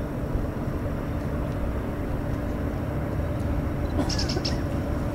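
Distant jet engines of a Delta Boeing 767 rumbling steadily as it rolls on the runway, with a faint steady hum underneath. A few short high clicks sound about four seconds in.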